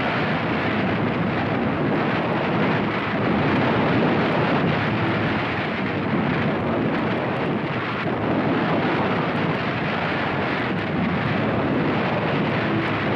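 A steady roar of rushing noise with no separate bangs. It comes from the blast that throws open a Minuteman missile silo's launcher closure door and hurls sand, dirt and snow against a barrier.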